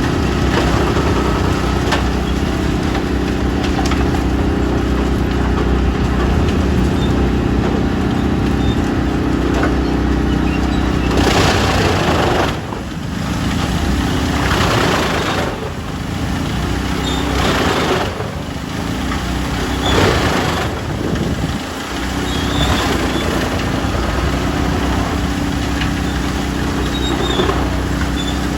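Tractor-driven wood chipper running: a steady heavy diesel drone, with four or five louder rushing bursts of chipping between about 11 and 21 seconds in.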